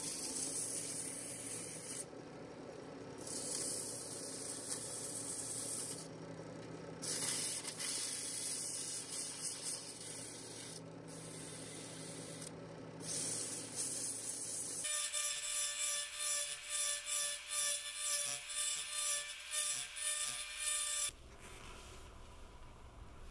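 Rikon wood lathe running with sandpaper held against the spinning wooden part, a steady motor hum under a rubbing hiss. About two thirds of the way in, the sound changes to a pulsing hum of about one and a half pulses a second, which drops away near the end.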